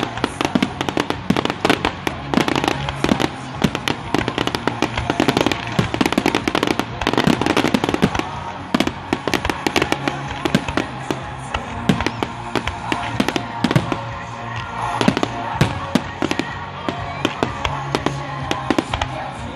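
Aerial fireworks display: a dense run of bangs and crackling shell bursts, thinning out after about eight seconds, with music playing underneath.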